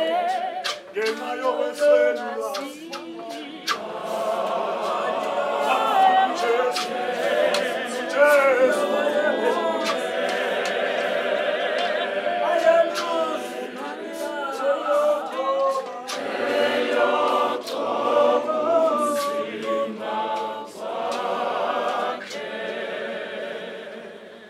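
Church choir singing a cappella, many voices together, with sharp knocks here and there; the singing fades out near the end.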